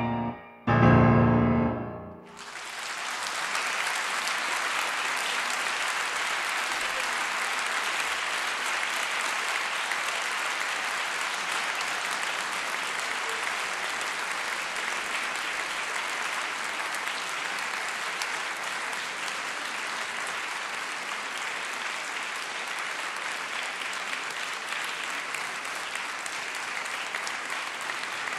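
Grand piano playing its closing chords, the last one struck about a second in and ringing briefly. Then audience applause starts about two seconds in and continues steadily, easing a little toward the end.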